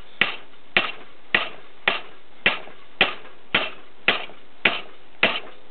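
Hammer blows on a grade 8 steel bolt clamped in a bench vise, bending it over: sharp metal strikes, about two a second, each with a short ring.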